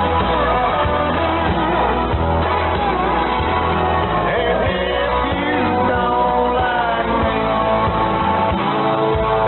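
A country-rock song with singing and a full band, heard over AM shortwave radio reception, its sound cut off above about 4 kHz.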